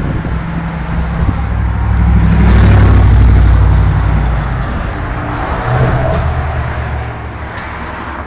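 Street traffic: a motor vehicle's low engine rumble swells to a peak about three seconds in, then slowly fades.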